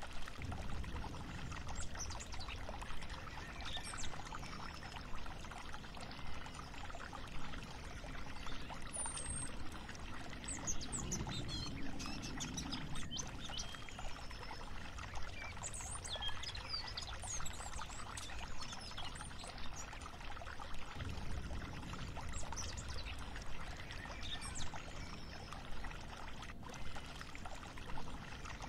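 Chocolate syrup mixture being stirred with a spatula in a steel saucepan as it boils, a steady watery swishing with a stroke about once a second. A few faint bird chirps sound in the background.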